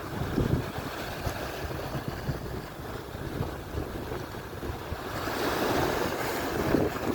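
Atlantic surf: waves breaking and washing on the shore, with wind buffeting the microphone. A wave surges up louder about five seconds in.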